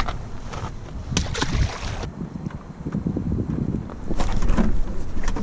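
Wind buffeting the microphone, a loud irregular low rumble, with a few sharp clicks and knocks about a second in and again near the end.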